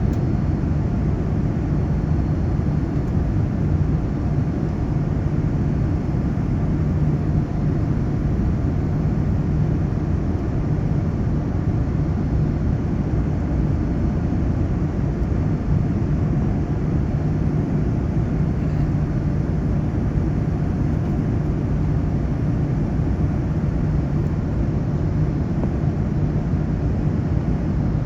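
Steady cabin noise of a Boeing 787 airliner in flight: an even rumble of engines and airflow with a constant low hum, unchanging throughout.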